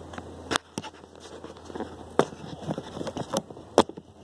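A series of irregular sharp clicks and knocks. Three louder knocks come about a second and a half apart, with lighter clicks between them.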